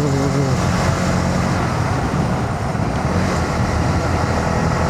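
Honda CB125R's single-cylinder engine running steadily under way, mixed with wind and road noise.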